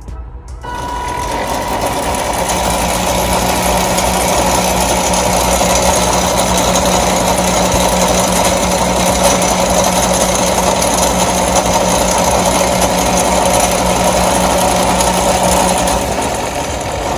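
Two high-speed 150 W DC motors spinning the launcher's blue rubber wheels. The sound starts suddenly about a second in, builds to a loud, steady-pitched running hum, and drops off near the end. It is the machine's mild vibration, which the builder judges workable and not too noisy.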